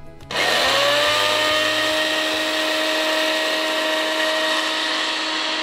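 Countertop blender switched on about a third of a second in, its motor spinning up and settling into a steady loud whine as it whips egg whites.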